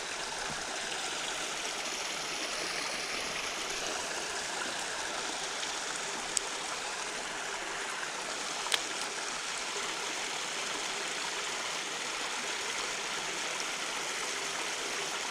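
Creek water running steadily, an even rushing hiss. Midway through, two brief sharp clicks about two seconds apart.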